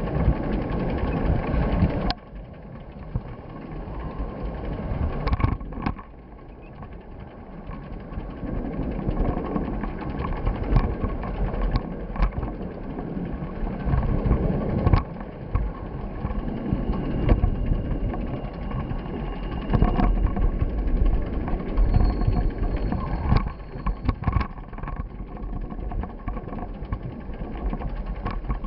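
Wind and road noise buffeting an action camera's microphone while moving, mostly low rumble, with scattered knocks and rattles.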